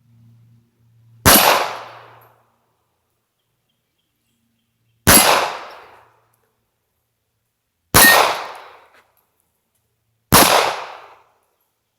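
Four single pistol shots from a Smith & Wesson M&P Bodyguard 380 firing PMC Bronze .380 ACP, spaced several seconds apart, each with a short echo trailing off.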